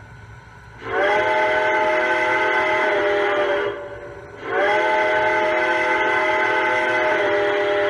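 Sound system of a Lionel Legacy Reading T1 model steam locomotive playing its multi-chime steam whistle with a hiss of steam: two long blasts, the first about three seconds long, the second starting about four and a half seconds in and still sounding at the end, each rising slightly in pitch as it opens.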